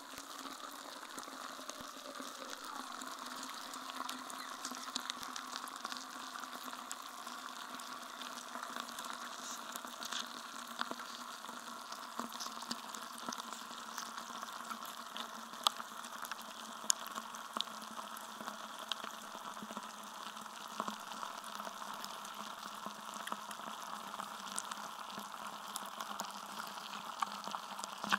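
Block of ice melting in water, heard through contact microphones frozen inside it: a dense, steady crackling and fizzing of countless tiny pops, with a few louder pops about halfway through.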